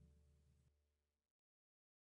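Near silence: a faint trace of room tone fades out, and the sound cuts to complete digital silence just over a second in.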